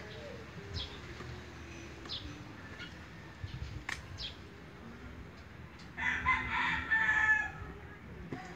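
A rooster crowing once, about six seconds in, the loudest sound here, over small birds chirping now and then.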